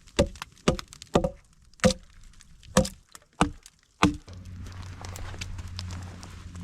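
Wood being chopped: about seven sharp strikes, some with a short ring, spaced roughly half a second to a second apart. A steady low rumble follows from about four seconds in.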